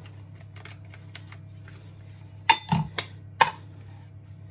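A red digital kitchen scale and a ceramic mixing bowl being handled and set down on a kitchen worktop: four sharp knocks in quick succession, from about two and a half to three and a half seconds in, over a low steady hum.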